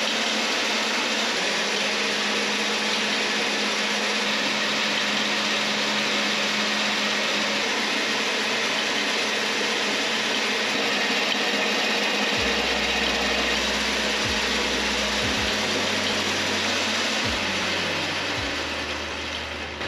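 Predator 212 single-cylinder engine running on a mini bike up on a stand, driving the chain drivetrain so that both the rear and front wheels spin freely, with whirring and rattling from the chains and sprockets. Near the end the engine slows and the running winds down.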